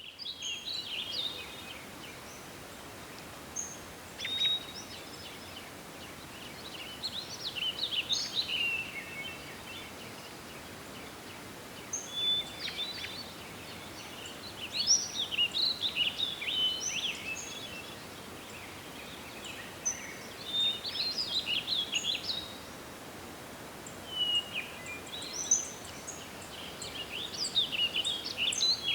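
Forest ambience: songbirds singing in bursts of quick chirps and whistled phrases every few seconds over a steady hiss of wind.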